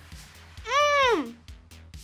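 Background music with a steady beat. About half a second in, a girl gives one drawn-out vocal sound of enjoyment while chewing jerky, its pitch arching up and then sliding down.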